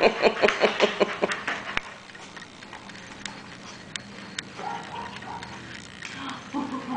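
Schnoodle dog panting rapidly for about the first two seconds, then quieter, with scattered light clicks of its claws on the hard floor.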